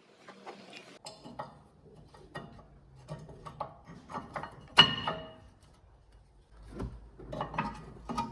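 Metal tools and brake parts being handled, giving irregular clicks and clinks with one sharp ringing clink about halfway through.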